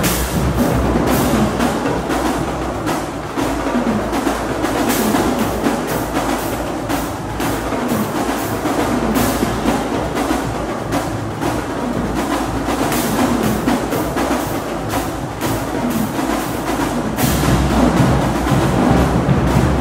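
College marching band drumline playing a fast percussion feature: snare drums, bass drums and crash cymbals in dense, rapid strokes. The deep bass-drum part drops out about a second in and comes back in near the end.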